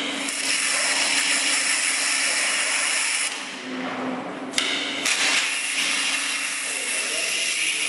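High-pressure waterjet cutting machine's jet hissing loudly and steadily. It shuts off about three seconds in and starts again sharply about a second and a half later, over a steady low hum.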